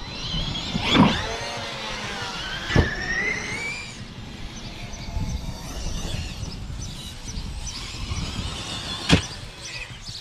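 Electric RC monster truck's motor whining as it spins down and then speeds up again, with sharp thumps about a second in, near three seconds and near the end, over background music.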